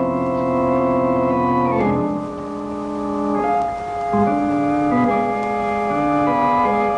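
Organ music cue bridging two scenes: a held chord with vibrato that breaks off about two seconds in, followed by a phrase of shorter notes.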